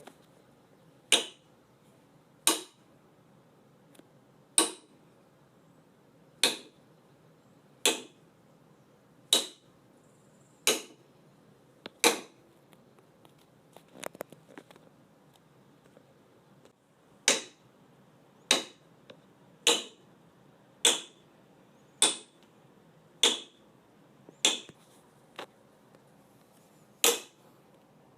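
A series of sharp clicks or snaps, about one every second and a half, over a faint steady hiss. There is a pause in the middle, broken only by a few faint ticks.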